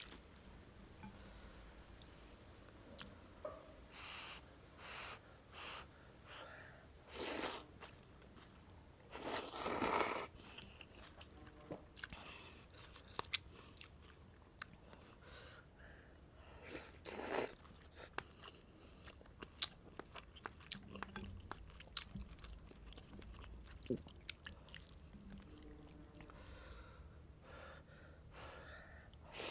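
Close-up eating sounds from a bowl of bún bò beef noodle soup: wet chewing and biting with many small mouth clicks. A few louder, noisy bursts of about half a second each come through, the clearest about 10 seconds in.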